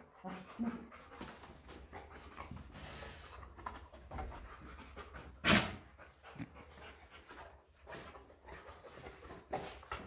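A dog panting, with one sharp sneeze about halfway through, set off by dust in the barn.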